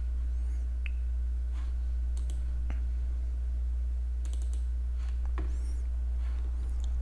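A steady low hum with a few faint, scattered computer mouse clicks.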